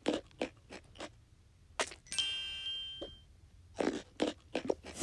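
A single bright ding about two seconds in, starting sharply with several clear high tones that ring on and fade over about a second, with soft whispered talk before and after.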